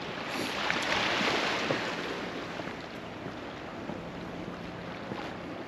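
Ocean surf washing against shoreline rocks, with wind on the microphone. The wash swells over the first couple of seconds, then eases to a steady background.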